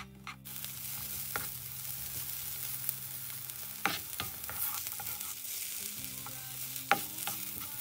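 Sliced onion and green bell pepper sizzling as they sauté in butter in a non-stick frying pan, starting about half a second in. A silicone utensil stirs them, with a few sharp taps and scrapes against the pan.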